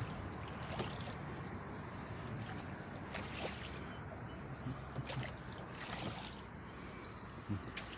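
Oars of a flat-bottomed rowboat dipping and pulling, water splashing and trickling off the blades every couple of seconds, with a couple of sharp knocks.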